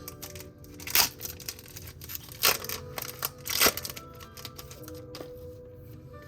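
Crinkling and snapping from handling Pokémon booster packs and cards, with three sharp louder crackles about one, two and a half, and nearly four seconds in, over soft background music.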